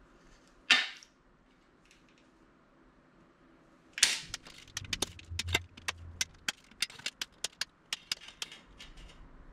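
Aviation tin snips clipping corners off the tabs of a thin aluminum bulkhead part. One sharp snip comes about a second in, then from about four seconds a quick run of some twenty sharp snips and clicks as corner after corner is cut.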